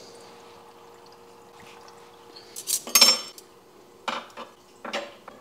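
Long metal aquascaping tools (tweezers and a substrate spatula) clinking against each other and a wooden table as they are set down: one loud clatter about three seconds in, then a few lighter knocks. Before that, only a faint steady hum.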